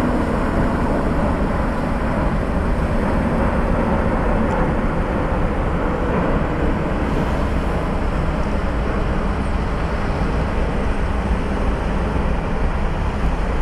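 Airbus A350-900 jet airliner on short final approach, its Rolls-Royce Trent XWB engines giving a steady, unchanging jet noise.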